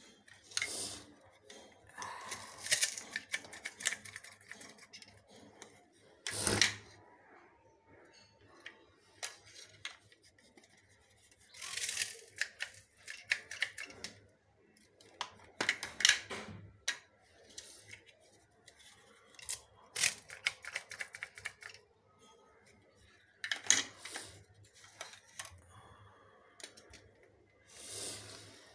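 Onion being cut by hand with a small blade: clusters of quick, crisp cuts every few seconds, with short pauses between.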